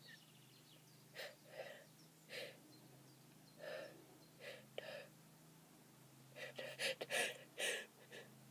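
A person's short, faint gasping breaths while holding back a sneeze. They are sparse at first and come quicker and a little louder over the last two seconds as the sneeze builds.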